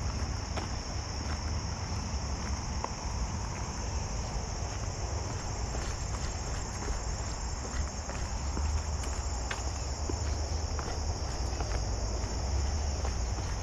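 A steady, high-pitched chorus of insects chirring from the surrounding vegetation, over a low rumble and the faint scuff of footsteps on pavement and stone steps.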